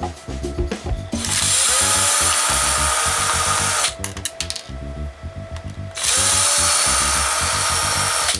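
A small power tool running in two bursts of about two and a half seconds each, each spinning up with a short rising whine, over background music with a steady beat.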